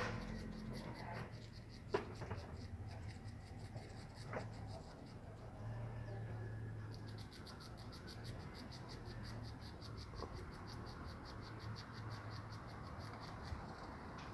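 Insects chirring in a fast, even pulse of high-pitched notes, over a low steady hum, with a few sharp clicks, the loudest about two seconds in.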